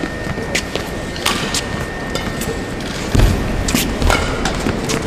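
Live badminton rally: sharp racket strikes on the shuttlecock every second or so and players' footfalls on the court, with a heavy thud about three seconds in, over the steady hubbub of an arena crowd.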